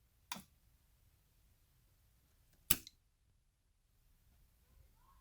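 Near silence with the inverter switched off and its hum gone, broken by two short sharp clicks: one just after the start and a louder one a little past halfway.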